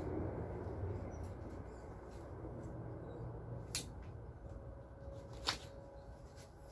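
Hand trowel scraping and digging in loose garden soil, fading off, with two sharp clicks around the middle and later on.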